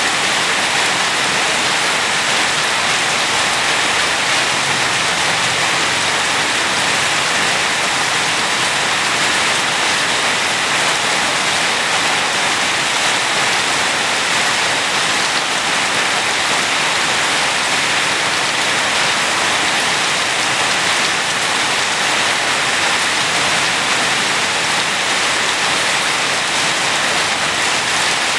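Steady rain falling, a dense even hiss of drops with no let-up.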